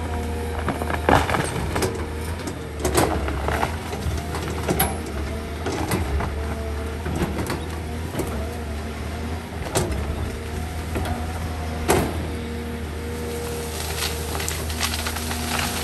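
Caterpillar hydraulic excavator at work, its diesel engine running steadily while the arm pushes through brush. Branches crack and snap several times, loudest about a second in and about twelve seconds in.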